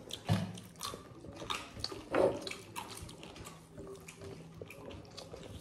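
Close-up eating sounds of naan being eaten by hand: soft chewing with small irregular clicks and crackles, one slightly louder about two seconds in.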